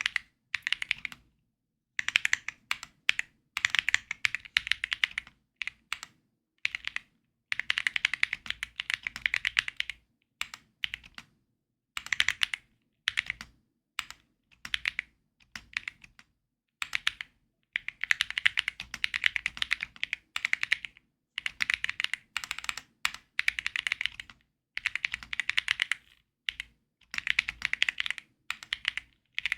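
Typing on a Keysme Lunar 01 mechanical keyboard fitted with Gateron Weightlessness switches: runs of rapid keystroke clicks broken by short pauses.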